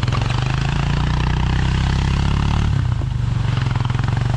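Engine of a small off-road vehicle running steadily under load as it tows a rider through snow, with a brief drop in engine speed about two and a half seconds in, over the rush of blizzard wind on the microphone.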